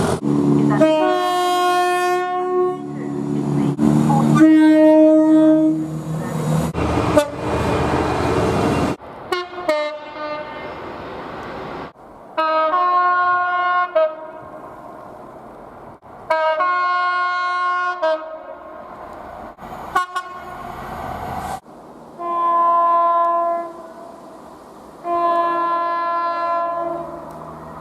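Train horns sounding in a series of separate blasts, about seven in all, each lasting a second or two, with abrupt cuts from one to the next. The running noise of a passing train fills the first several seconds.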